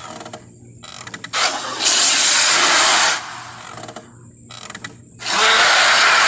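Carnotaurus creature sound effects from film: short rattling clicks, then a loud, rough, noisy roar about a second and a half in lasting nearly two seconds, then more clicks and a second loud roar starting a little after five seconds.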